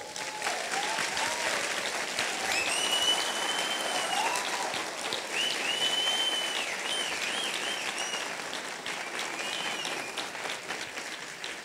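A large audience applauding, with a few high-pitched calls over the clapping. The applause thins out near the end.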